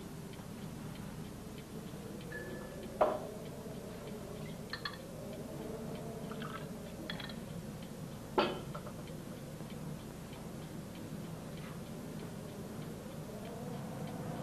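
Mantel clock ticking steadily in a quiet room, with two sharp knocks, one about three seconds in and one past eight seconds.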